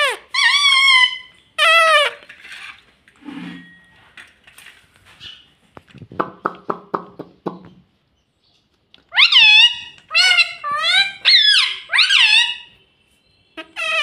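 Rose-ringed parakeets giving loud, high-pitched squawking calls that sweep up and down. The calls come in two runs, near the start and from about nine seconds in, with a short burst of rapid low chattering in between.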